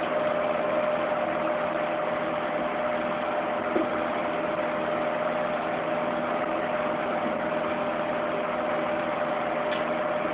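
Electric fan heater running, its fan blowing with a steady whir and a constant hum tone, with a small click about four seconds in.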